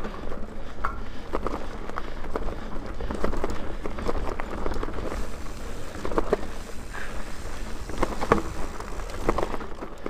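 Mountain bike riding fast down a dirt singletrack: a low steady rumble from the tyres on the trail, broken by frequent sharp clicks and rattles from the bike over bumps and roots.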